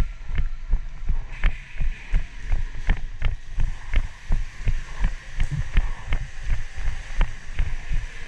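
Footsteps thudding on a concrete floor as a player runs, about two steps a second, with gear jostling.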